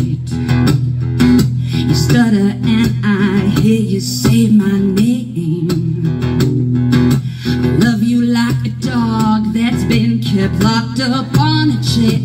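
Live music: a woman singing into a microphone over her own strummed acoustic guitar, played through a small PA speaker.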